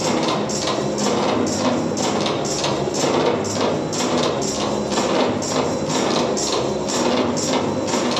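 Dance music with a strong, steady beat, about two beats a second.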